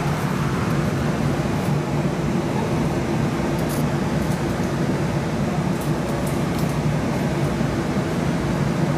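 Steady hum inside a Siemens S70 streetcar car: its air conditioning and onboard equipment running, with a low drone that holds level and a few faint high ticks.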